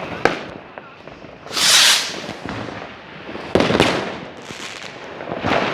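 Fireworks going off: a few sharp bangs with short echoing tails, and a loud hissing crackle about a second and a half in, the loudest moment.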